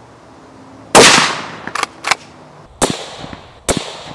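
A single shot from a suppressed Beretta BRX1 straight-pull rifle in 6.5 Creedmoor about a second in, loud and fading out slowly, followed by two quick sharp clicks of the straight-pull bolt being worked back and forward. From just under 3 seconds in, a run of shorter sharp cracks comes about once every 0.8 seconds.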